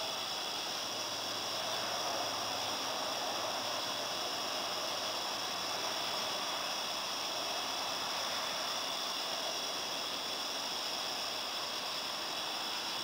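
A steady chorus of crickets chirping over an even rushing hiss, with no thunder.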